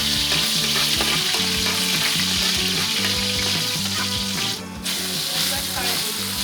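Food sizzling and being stirred in a hot pan or wok: a loud, steady frying hiss, briefly broken about three-quarters of the way through.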